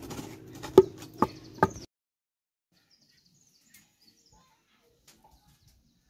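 A long wooden pestle pounding in a mortar: three sharp knocks about half a second apart over a steady low hum, cut off abruptly just under two seconds in, leaving only a few faint ticks.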